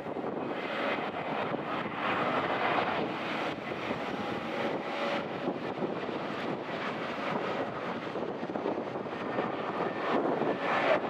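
Airbus A320neo (A320-271N) jet airliner, its geared turbofan engines making a steady, even noise with faint steady whining tones above it.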